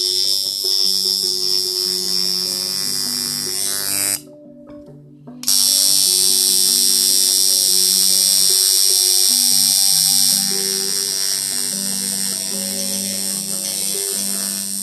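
Tattoo machine buzzing steadily as it works on skin. It stops for about a second some four seconds in, then starts again. Background music with changing low notes plays underneath.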